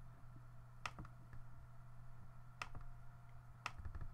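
Computer mouse clicks, faint and sharp: two quick pairs and then a single click, over a low steady background hum.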